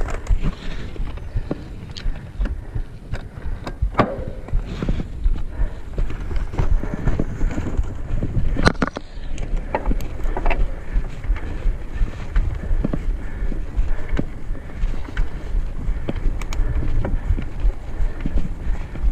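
Mountain bike ridden over a rough dirt singletrack: a continuous rumble of tyres and wind buffeting the microphone, with frequent sharp knocks and rattles from the bike jolting over bumps.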